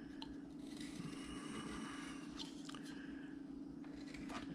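A carving knife slicing into wood with faint crunching, scraping cuts and a few light ticks, over a steady low hum.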